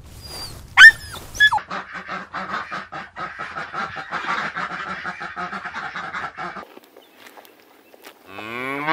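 A small dog gives two short yelps, then a flock of white domestic ducks quacks in a dense, steady chatter for about five seconds. Near the end a cow starts a loud moo.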